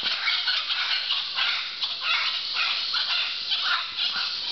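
Mantled howler monkeys howling in a group, a dense run of rough, overlapping calls.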